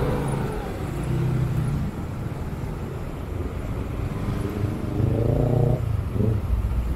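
Motorcycle engine running under way, holding a steady note, then revving up twice in quick succession in the second half, with a short break between the rises.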